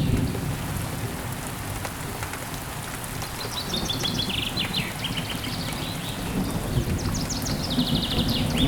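Steady rain with a low rumble of thunder dying away at the start. A bird calls in quick runs of high chirping notes about three seconds in and again near the end.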